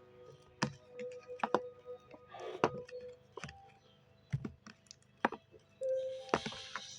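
Irregular clicks and taps of slime being mixed with a utensil in a bowl after a little water is added, with short wet hissy squelches, over faint background music.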